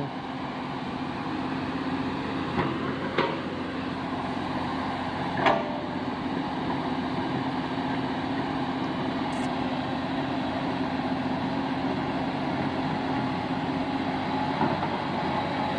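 Tracked excavator's diesel engine running steadily as the machine crawls along a mud track, with a few brief sharper sounds in the first six seconds.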